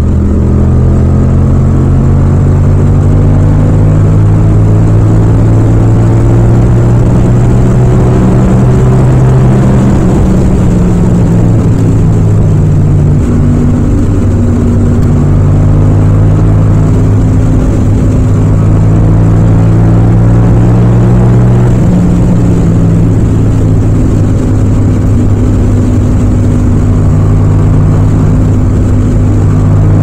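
Yamaha MT-07's parallel-twin engine running loud and steady under load in fifth gear at highway speed. Its note climbs gradually as the bike speeds up, with a brief dip about ten seconds in before it rises again.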